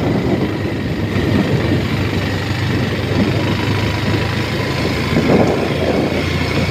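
A road vehicle's engine running steadily as it travels along a road, under a dense rushing noise.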